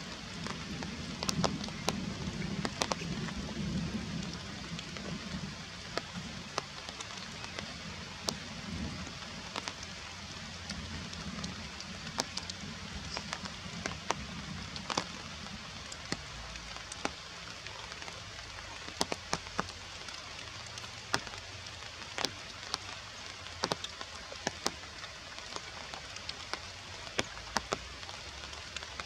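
Steady rain falling through the forest canopy, an even hiss with scattered sharp ticks of single drops landing close by.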